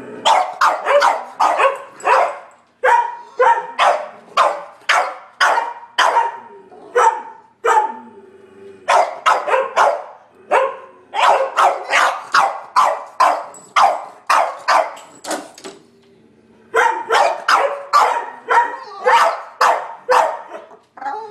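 A French bulldog and other dogs barking hard in quick runs, two or three barks a second, with short breaks about 3, 8 and 16 seconds in: alert barking at a squirrel outside.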